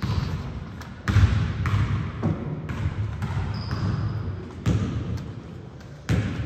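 Basketball bouncing on a hardwood gym floor during play: a handful of heavy, echoing thuds at uneven intervals. A brief high squeak comes about halfway through.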